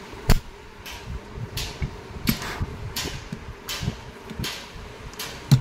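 Sharp metal clicks and knocks from a hand tool worked on a car AC compressor's clutch hub, loudest about a third of a second in and again near the end. Lighter clicks and cloth rustling come between, over a steady fan hum.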